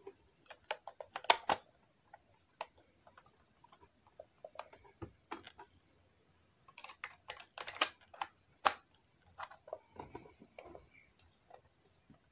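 Plastic clicks and knocks from AA batteries being fitted into the plastic battery compartment of a Casio TV-770 pocket LCD television and from handling its battery cover. The sharpest clicks come about a second in, and another burst of clicks comes in the second half.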